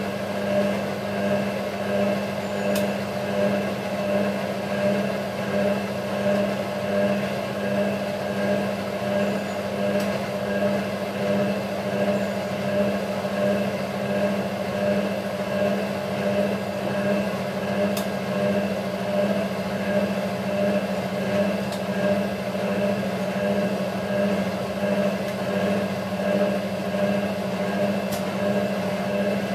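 Hotpoint 9530 washing machine in its distribution drain: the drain pump hums steadily while the drum turns the wet load, with a swish that rises and falls about once a second.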